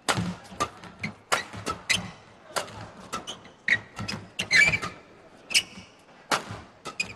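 Badminton rally: racket strings striking a shuttlecock back and forth, a string of sharp cracks coming irregularly, sometimes a few in quick succession, mixed with players' footfalls on the court.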